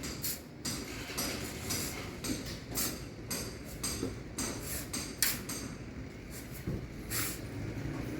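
Irregular knocks and scrapes of hand tools in manual construction work, several a second over a steady background hum.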